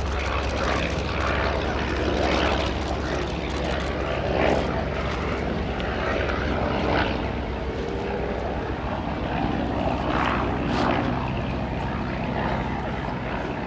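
A de Havilland DH-9 biplane in flight, its six-cylinder inline Beardmore-Halford-Pullinger engine and propeller running with a steady, even note.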